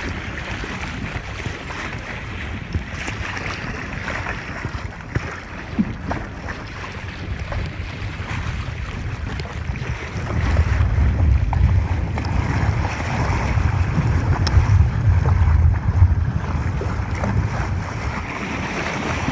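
Strong wind buffeting the microphone over the noise of surf, with gusts of low rumble growing louder about halfway through.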